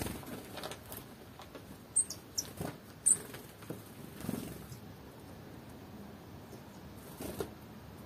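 Small songbirds, a tit and a Eurasian nuthatch, at a cloth-covered seed table: light wing flutters and soft landings, with two short, very high, downward chirps about two and three seconds in.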